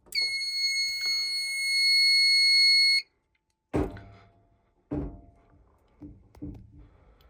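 Fire alarm horn sounding one steady, high-pitched tone for about three seconds, then cutting off suddenly. A few dull knocks follow.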